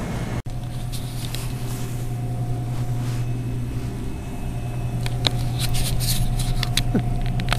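Steady low hum of a drink vending machine running, with a fainter higher steady tone above it. A few light clicks and rustles come in the last few seconds.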